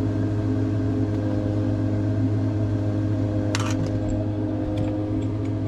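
Steady machine hum: a low drone with several held tones above it, unchanging throughout. A brief clatter about three and a half seconds in.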